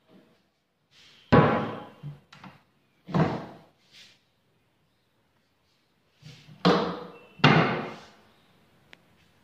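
Kitchen cabinet doors being shut: four sharp knocks, two spread apart early and two in quick succession later, with a few lighter clicks between them.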